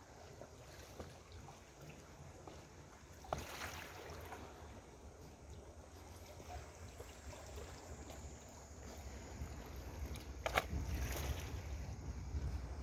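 Wind rumbling on the microphone by the sea, growing stronger in the second half, over a faint wash of water, with two sharp knocks, about three seconds in and near the end.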